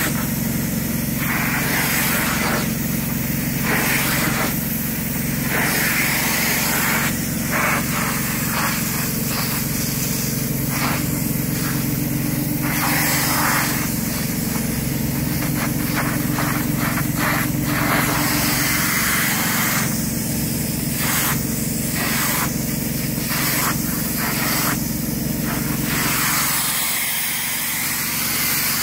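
Truck-mounted carpet-cleaning extractor running, its vacuum drawing air and water through an upholstery wand pulled across microfiber cushions. A steady low hum lies under a spray-and-suction hiss that swells and fades with each stroke, about one a second. The hum dips briefly near the end as the wand is lifted away.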